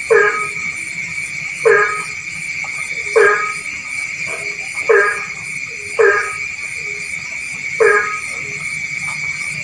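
Frogs calling: one loud frog croaks six times, about one call every second or so. Behind it runs a steady high-pitched chorus and a faint, fast, very high pulsing.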